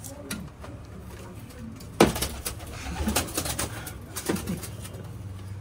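Pigeons cooing, with a sharp knock about two seconds in followed by a run of clicks and rustling.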